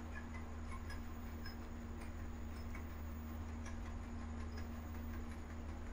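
Quiet background room tone during a pause in speech: a steady low hum with faint, scattered ticks.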